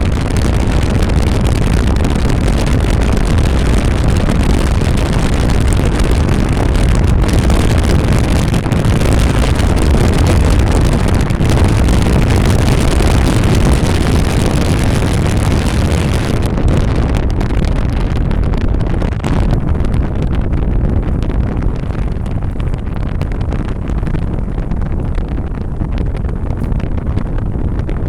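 A car driving steadily: a continuous rumble of road and wind noise with no break. About two-thirds of the way through, the high hiss drops away and the low rumble carries on.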